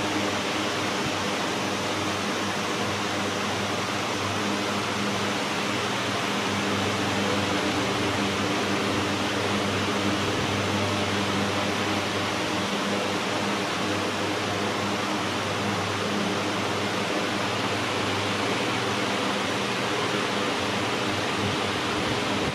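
A steady, even hiss with a low hum beneath it; no distinct calls, knocks or other single sounds stand out.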